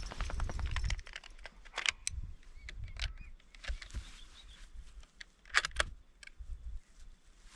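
A few scattered sharp clicks and knocks, the loudest about two-thirds of the way through, over a low rumble.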